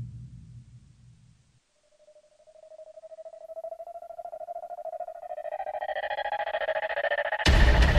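Drum-heavy background music fades out, then after a moment of silence a fast-warbling electronic tone rises slowly in pitch and swells in loudness. It is cut off about half a second before the end by a loud full-range hit as new music begins.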